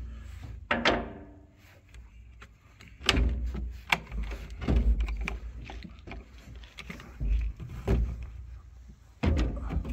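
Five-gallon plastic buckets of hydraulic fluid being shifted, lifted and set down on the excavator's steel deck: a series of separate knocks and thumps.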